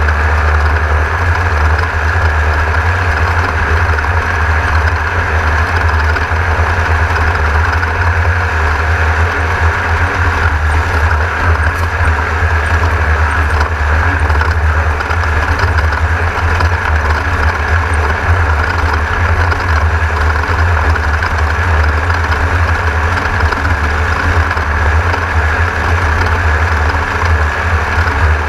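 Class 1600 off-road race car running at speed, heard from inside the car: its air-cooled Volkswagen 1600 cc engine and drivetrain give a loud, steady drone.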